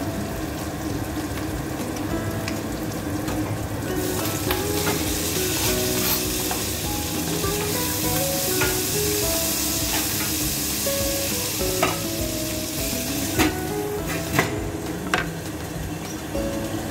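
Chicken mechado sizzling in a stainless-steel pot while it is stirred with a wooden spoon. The sizzle grows louder about four seconds in and eases off around twelve seconds, and near the end come a few sharp clinks and knocks of the spoon and the lid on the pot.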